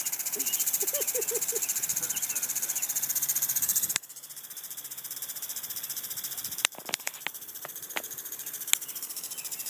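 Lawn sprinkler spraying water, a fast pulsing hiss that drops abruptly about four seconds in and carries on fainter. A few short puppy whines come in the first couple of seconds, and several sharp clicks near the end.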